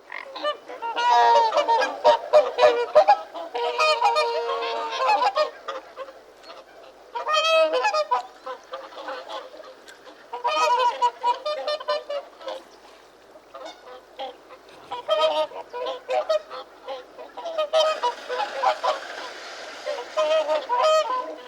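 Swans honking in repeated bouts of rapid calls, the longest and loudest bout in the first few seconds, over a steady background hiss.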